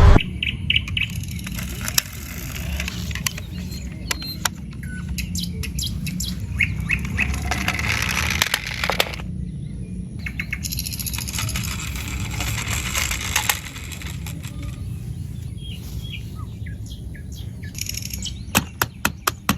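Birds chirping in the background over a steady low hum, with scattered sharp clicks and a quick run of clicks near the end.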